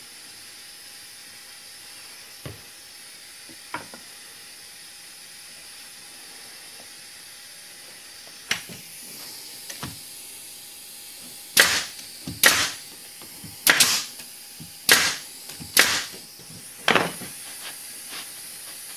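Nail gun firing a series of nails into stacked plywood, about eight sharp cracks spread over the second half, over a steady hiss.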